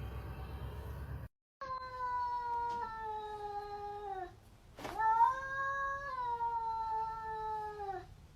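A cat giving two long, drawn-out caterwauling yowls, each held on a steady pitch that sags at the end: the threatening yowl of a cat in a standoff before a fight. A low rumbling noise cuts off about a second in, and a sharp click comes just before the second yowl.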